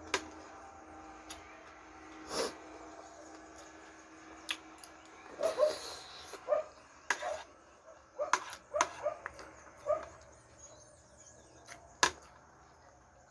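Close-up eating sounds: irregular chewing and lip-smacking with scattered sharp clicks. The busiest stretch is in the middle and there is one sharp click near the end.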